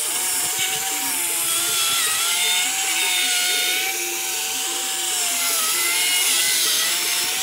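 Black & Decker Matrix cordless drill running continuously with a foam buffing pad pressed on a headlight lens, polishing in the headlight cleaner after sanding. A steady motor whine whose pitch wavers and dips briefly a few times.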